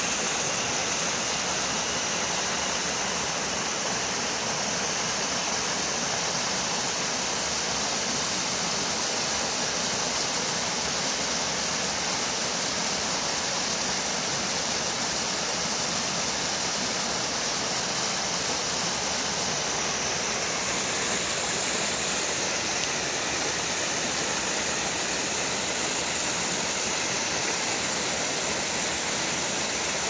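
Mountain stream water tumbling over rocks in small cascades: a steady rushing and splashing.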